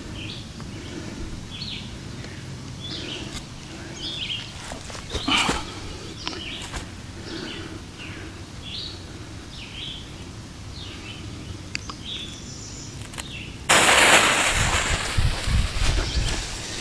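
Small birds chirp on and off over outdoor ambience. About fourteen seconds in, a loud, even hiss starts suddenly and lasts about three seconds: the lit fuse of a silver salute firecracker burning down before it goes off.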